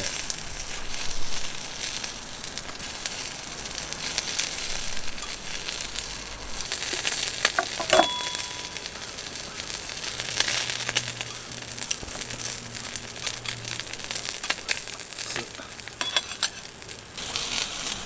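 Bone-in chicken sizzling and crackling in olive oil on a hot griddle plate over a single gas burner. About eight seconds in, one sharp metallic click with a brief ring, as the tongs touch the plate.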